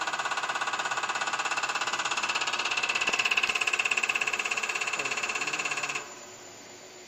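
Common rail injector firing on a CR966 injector test bench, a rapid, even clicking buzz as it sprays into the measuring cups. It cuts off abruptly about six seconds in, leaving a quieter steady running noise.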